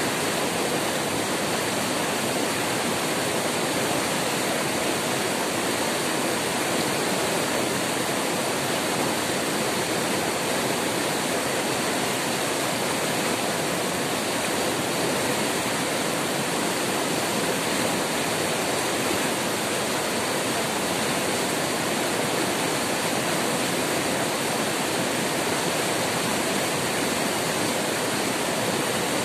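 Rushing white water of river rapids pouring over rock: a loud, steady roar of churning water.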